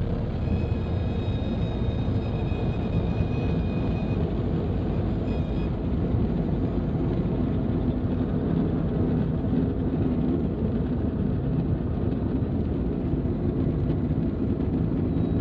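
Christen Eagle biplane's piston engine and propeller running steadily as the aircraft taxis, a continuous rumble heard from the open cockpit. A faint high whistle sounds over it in the first few seconds.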